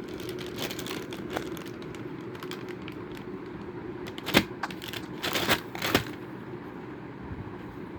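Packaging being handled and opened: scattered clicks and crinkles, a sharp snap about four seconds in, then a few short rustling bursts, over a steady low hum.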